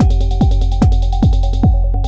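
Techno pattern played on an Elektron Model:Cycles groovebox: a four-on-the-floor kick drum, each hit falling in pitch, about two and a half a second, over fast hi-hat ticks and a sustained low bass and synth tones. Near the end the hi-hats drop out.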